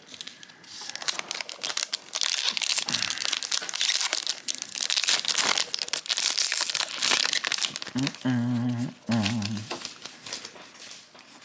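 Foil trading-card booster pack wrappers being torn open and crinkled by hand, a dense crackling that is heaviest in the middle. About eight seconds in there is a short pitched sound lasting under two seconds.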